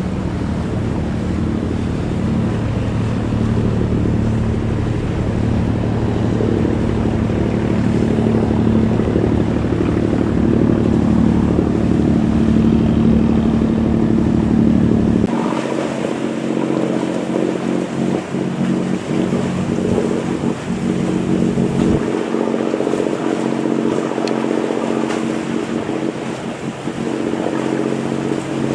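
A fishing boat's engine running steadily, a droning hum over wind and water noise. About halfway through the sound changes abruptly and loses its deepest rumble, and it shifts again a few seconds later.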